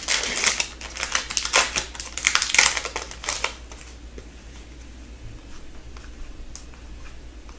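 A foil pack of 2015/16 Upper Deck Series 1 hockey cards torn open and crinkled, a dense crackle for about three and a half seconds, then quieter handling of the cards.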